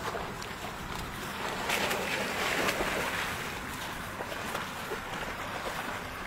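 Water splashing as Labrador dogs swim and paddle at a pond's edge, loudest for a second or two a couple of seconds in, over a steady rumble of wind on the microphone.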